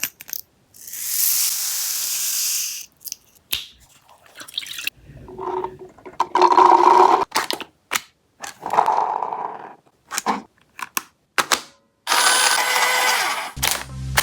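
Toy gel blaster being handled and fired: a series of sharp clicks between several hissing, spraying bursts, each one to two seconds long. Electronic music comes in near the end.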